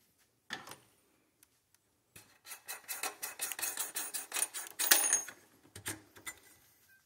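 Metal cleaning tools being handled on a bench: a knock about half a second in, then about three seconds of rapid clicking and clattering, and a last knock near six seconds.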